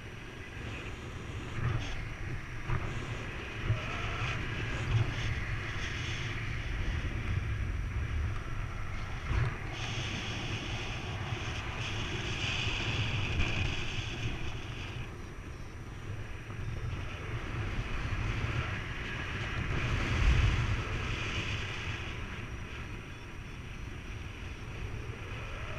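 Wind buffeting the camera microphone of a paraglider in flight: a gusty low rumble with a rushing hiss of airflow that swells and fades.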